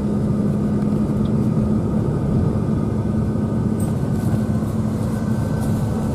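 Engine and tyre noise heard inside a moving pickup's cab on a snow-covered road: a steady rumble with a constant low hum.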